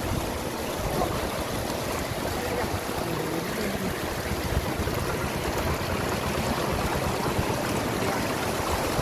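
Shallow floodwater running steadily across a dirt road, a continuous stream-like rush of water.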